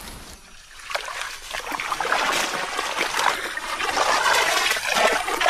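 Shallow marsh water splashing and sloshing among water hyacinth as something moves through it, starting about a second in and growing louder.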